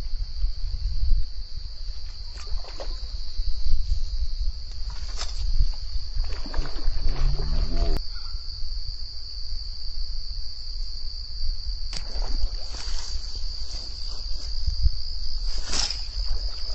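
Steady high-pitched drone of insects, probably crickets or cicadas, with wind buffeting the microphone as a low rumble. A few short clicks stand out, about five, twelve and sixteen seconds in.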